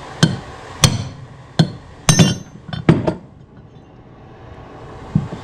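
Hammer blows on a bushing removal tool, driving the old front seal out of a 200-4R transmission's front oil pump: about eight sharp metal strikes over the first three seconds, one of them ringing briefly, then a pause.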